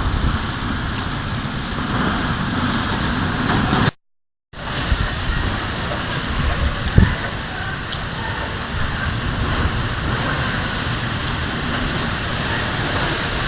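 Steady heavy rain falling and pattering on surfaces, cut off for half a second about four seconds in. A single short low thump comes about halfway through.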